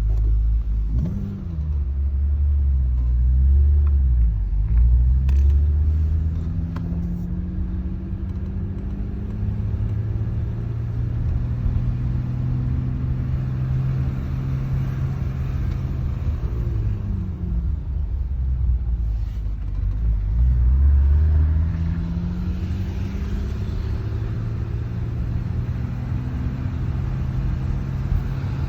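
BMW E34 525i's M20B25 2.5-litre straight-six with its stock exhaust, running while it warms up. The engine speed rises and falls several times over a steady low running note.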